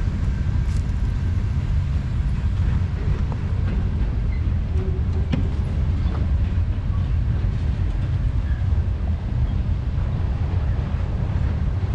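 A long train passing, a steady low rumble with a few faint clicks from the wheels and cars.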